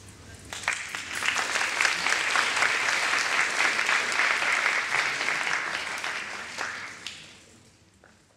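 Audience applauding: the clapping builds up within the first second or so, holds steady, then fades away near the end.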